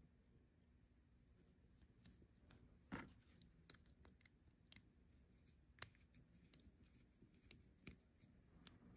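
Near silence broken by faint small clicks, about one a second from a few seconds in. A small screwdriver is tightening the screw of a tiny green screw terminal on a DROK battery-meter current shunt, clamping a red wire.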